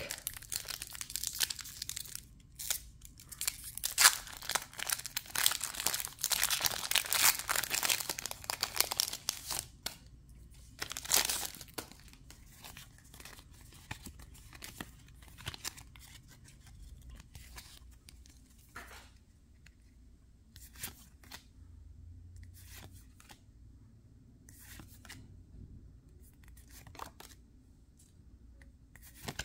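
Foil wrapper of a Pokémon TCG booster pack being torn open and crinkled for about ten seconds, with a last crinkle about a second later. After that come scattered soft rustles and clicks as the cards are handled.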